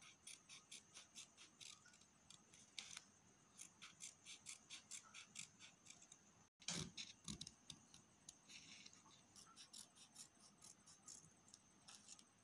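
Scissors snipping through folded colour paper in a run of faint, quick cuts, about three snips a second, as a fringe of slits is cut along the strip. There is a short break about halfway.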